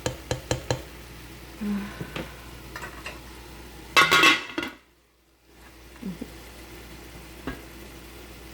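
Pots, pans and utensils clinking and clattering: a few quick clicks at the start, then one loud ringing clatter about four seconds in.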